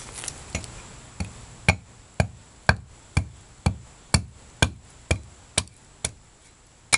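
Hatchet splitting a small piece of fatwood (resin-rich pine): a steady run of sharp wooden knocks, about two a second, as the blade is tapped down through the piece.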